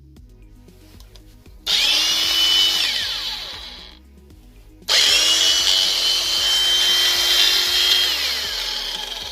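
Bosch angle grinder switched on twice, each time coming up to a steady high whine and then winding down with a falling pitch after switch-off; a brief run first, then a longer one. It is being test-run after its worn gears were replaced.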